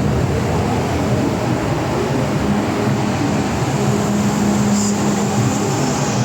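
MTR M-train metro car running, heard from inside the carriage: a steady rumble of wheels and running gear, with a steady motor hum that comes in for a couple of seconds midway.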